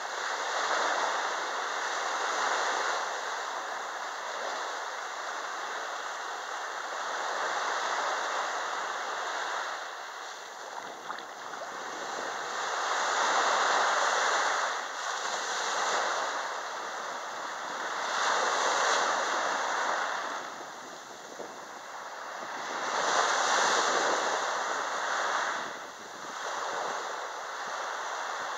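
Small sea waves breaking and washing up over sand at the water's edge, the surf swelling and fading every few seconds.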